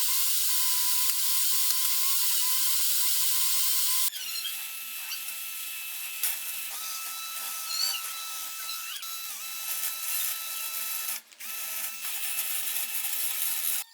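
Electric power tool running in short edited clips: a loud, steady, hissy whine for about four seconds, then a sudden cut to a quieter motor whine whose pitch wobbles now and then, with another brief cut near the end.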